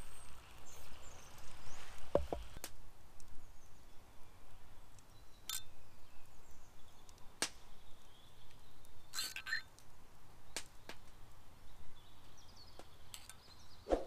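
Scattered light clinks and taps of a metal fork against a small metal pot while basting fish, about a dozen in all, a few ringing briefly, over quiet woodland ambience.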